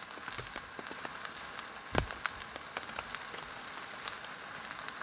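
Steady patter of rain on a tarp overhead, with scattered drips ticking and one louder knock about two seconds in.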